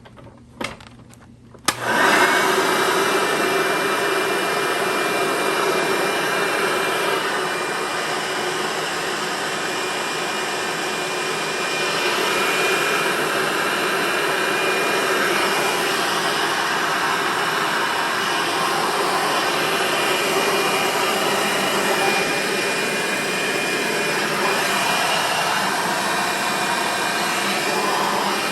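Hoover Sprint vacuum cleaner switched on after a few clicks, its motor spinning up with a rising whine about two seconds in and then running steadily. The owner judges that its drive belt needs replacing.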